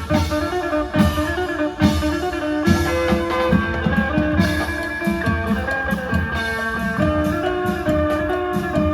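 Isan folk music: an amplified phin (Thai lute) plucking a fast melody over beating klong yao long drums.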